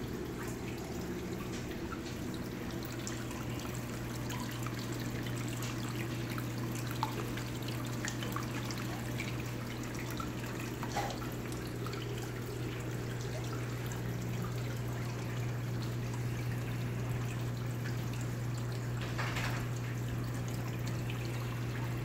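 Water trickling and splashing down a rock waterfall into a reef aquarium, with a few small drips, over a steady low hum.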